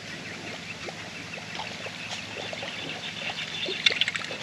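Water trickling and dripping, with small scattered clicks and taps and a cluster of sharper clicks near the end.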